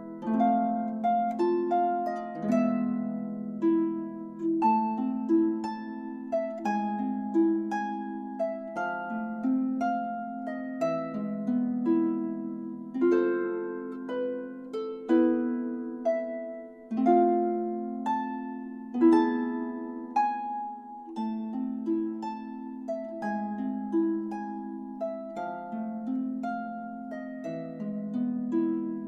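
Solo harp music: a plucked melody over low bass notes that change about every two seconds.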